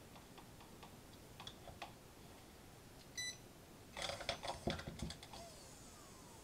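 A short electronic beep, then the new RC car motor, loose on the bench and wired to the ESC, briefly whirs and rattles about four seconds in before winding down with a falling whine.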